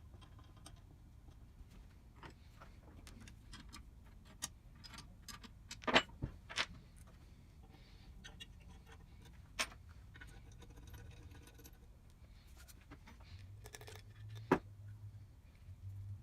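Scattered clicks and knocks of small metal parts and tools being handled during machine reassembly. A few sharper knocks stand out: a cluster about six seconds in, and single ones near the middle and near the end.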